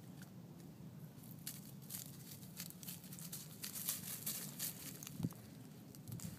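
Footsteps crunching and rustling through dry grass and bark mulch, a run of short crackles starting about a second and a half in, with one soft thump about five seconds in.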